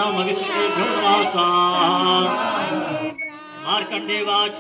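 Voices chanting Sanskrit havan mantras in a sustained, sung recitation. A little after three seconds the chant breaks briefly, and a short high ringing tone sounds; then the voices resume.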